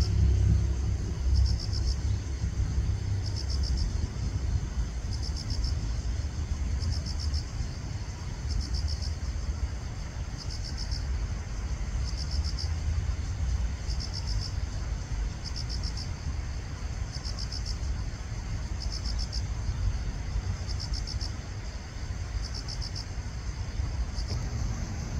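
An insect chirping in short, high, rapidly pulsed trills, repeated evenly about every two seconds, over a steady low rumble.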